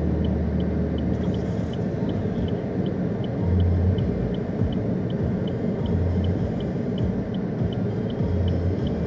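Low, steady rumble of the arriving Canadian Pacific train's diesel locomotives. A faint high tick repeats about three times a second, and a deeper hum swells briefly every two to three seconds.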